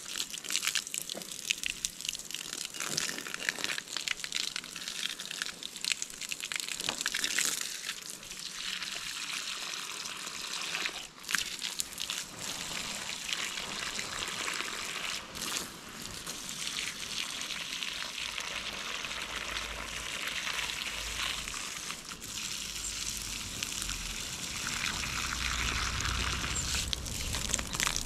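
Water splashing and trickling in an uneven rush, with scattered small ticks. A low rumble joins in near the end.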